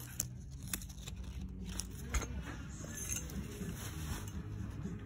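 Hanging clothes being handled on a clothing rail: nylon jacket fabric rustling, with scattered clicks and scrapes from hangers, over a low steady hum.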